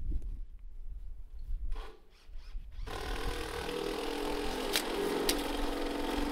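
A power tool's motor starts about three seconds in and runs steadily, with two sharp clicks partway through.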